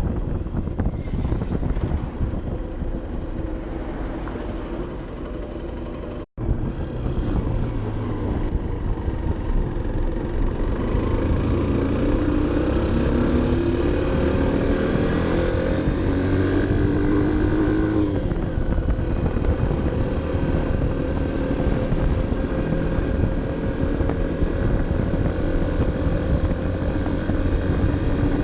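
Honda CB 125 F's single-cylinder four-stroke engine running under load, heard onboard with wind rushing over the microphone. The sound drops out briefly about six seconds in. Then the engine note climbs steadily for several seconds and falls abruptly as it shifts up a gear, then runs steady.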